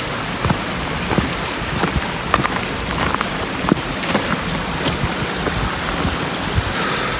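Footsteps crunching through dry leaves on a rocky trail, irregular steps about one or two a second, over a steady rush of water from a small creek.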